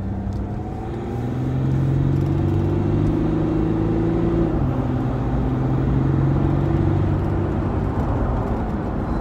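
Nissan Navara D40 pickup's V6 engine heard from inside the cab while driving, pulling up in pitch and loudness about a second in, dropping in pitch about halfway through, then running steadily.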